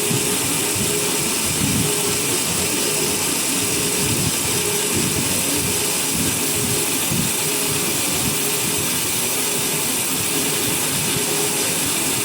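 Sawmill machinery running with a loud, steady noise and a thin hum that fades in and out.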